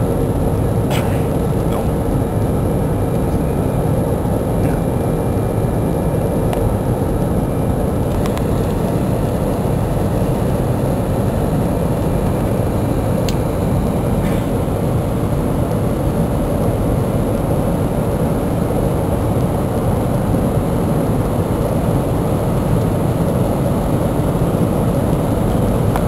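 Steady cabin roar of an Airbus A320 in the climb, heard from a window seat near the engine: jet engine and rushing airflow, with a faint steady hum underneath.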